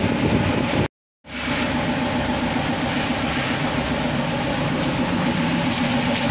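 Steady mechanical rumble with a fine rhythmic texture, like a running engine or machine, cutting out completely for about a third of a second about a second in.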